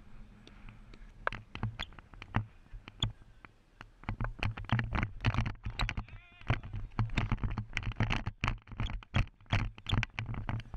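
Irregular knocks, clicks and rustling from a body-worn action camera jostled as a cricket batsman moves about, sparse for the first few seconds and then coming thick and fast from about four seconds in.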